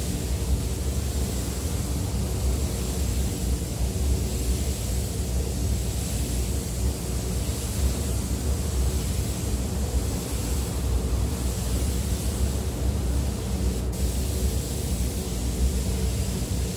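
Steady low rumble of a paint booth's ventilation fans, with a high hiss of compressed air from a spray gun that swells and eases as the coating is sprayed on.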